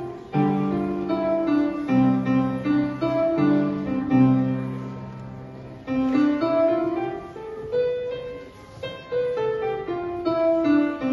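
Grand piano played solo, heard from the audience seats of a hall: a melody over low chords, then after a short pause about halfway a higher line that climbs and falls.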